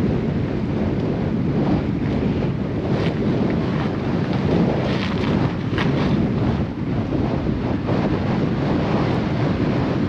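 Wind buffeting the microphone: a steady low rumble, with a few faint brief scratchy sounds over it.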